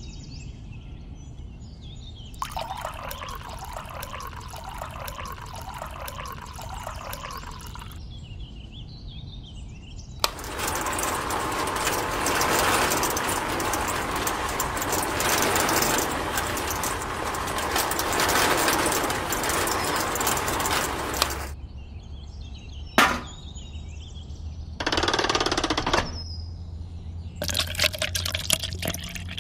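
Water poured from a small bucket into a miniature concrete mixer's drum. The mixer then runs for about eleven seconds with a loud, even churning noise as the drum turns the mix. A click follows, and near the end wet concrete slurry pours from the tipped drum into the bucket.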